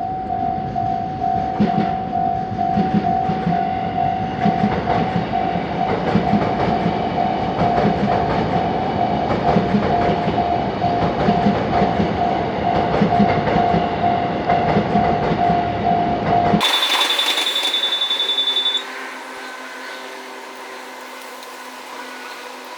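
Japanese railway level crossing's warning bell ringing in a steady, evenly pulsed repeat while a train runs through, its wheels knocking regularly over the rail joints. About two-thirds of the way through the sound cuts off suddenly to a much quieter scene with a brief high beeping.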